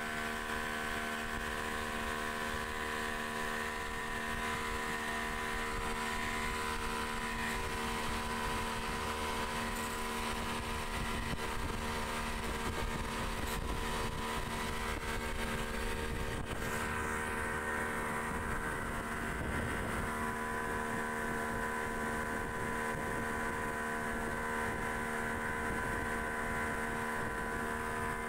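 Yamaha outboard motor driving a speedboat, running at a steady pitch, with the hiss of the wake and spray churning behind the boat.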